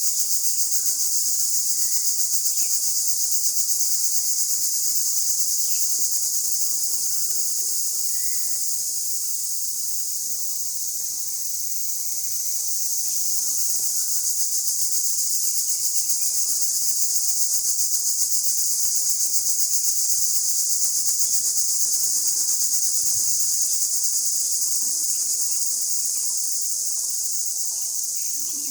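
A steady, loud, high-pitched chorus of insects such as crickets, shrilling without a break, with faint short bird chirps now and then beneath it.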